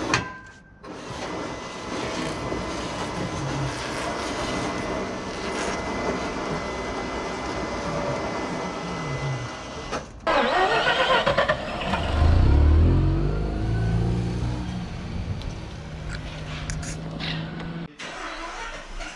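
Mazda RX-8 rotary engine starting a little past halfway: a short burst of cranking, a loud deep rev as it catches, then steady idling.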